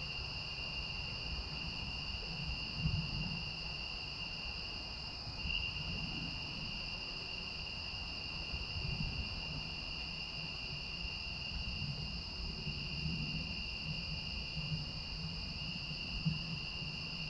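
Steady chorus of singing insects such as crickets: an unbroken high trilling at two pitches, over a low rumbling noise.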